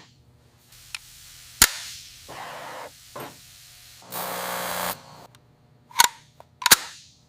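Three sharp bangs: one about a second and a half in and two close together near the end. Between them come two short bursts of hiss.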